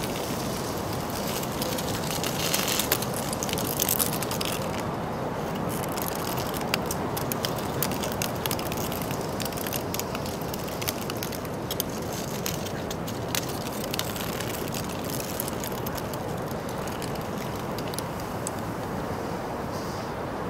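Street ambience: a steady background hiss with many scattered light clicks and rattles.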